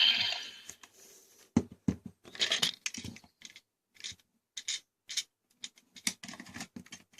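Plastic toy being handled: an irregular run of short clicks and light scrapes with brief pauses between them.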